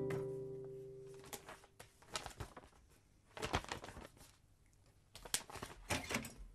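Sheets of paper rustling and pages being turned on a desk, in a few short bursts with quiet between. The tail of a music cue fades away in the first second.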